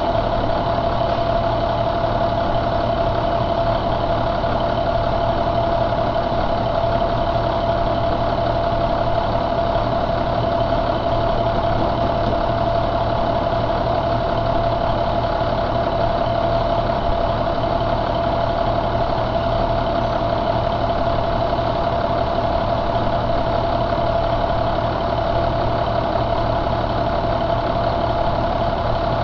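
2007 International DT466E inline-six turbo diesel idling steadily, with a steady whine running over the engine note.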